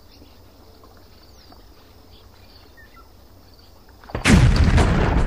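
Faint background hiss, then about four seconds in a sudden loud blast of battle noise, rough and about a second long.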